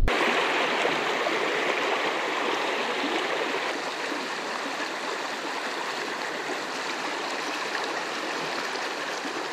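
Small rocky trout stream running through a riffle: a steady rush of water, a little louder in the first few seconds.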